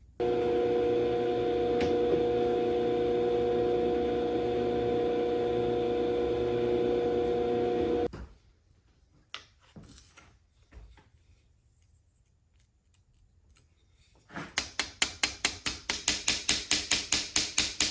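A shop power tool runs steadily with a fixed hum for about eight seconds, then stops abruptly. After a quiet stretch with a few light clicks, a machine starts a fast, even chatter of about six beats a second.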